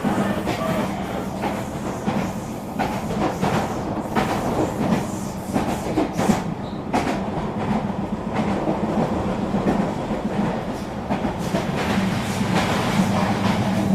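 Regional electric train running along the track: a steady rolling rumble with a constant low hum, broken by irregular clicks and knocks of the wheels over rail joints.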